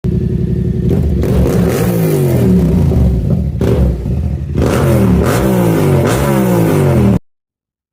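Motorcycle engine revving hard several times, its pitch climbing and dropping with each blip of the throttle, then cutting off abruptly about seven seconds in.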